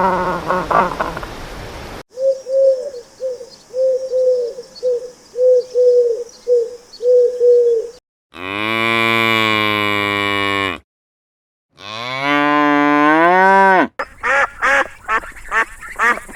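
Cow mooing twice: a long, even moo, then after a brief silence a second moo that rises in pitch. Before them comes a run of short, evenly repeated animal calls, and after them a quick series of short calls, likely duck quacks.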